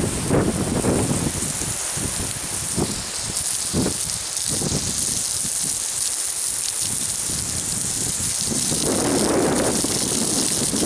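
Water sprayed from a hose patters and hisses steadily on a steel ammo can and the grass around it, like rain. About nine seconds in, the jet hits the can directly and the splashing gets fuller for a second or two.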